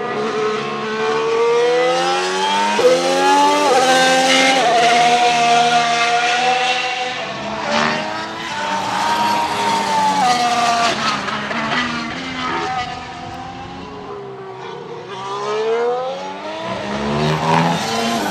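McLaren MCL34 Formula 1 car's Renault E-Tech 19 1.6-litre turbocharged V6 hybrid engine at speed on track. The revs climb with a couple of quick upshifts in the first few seconds, fall away on lifts and downshifts around the middle, run lower for a while, then climb again near the end.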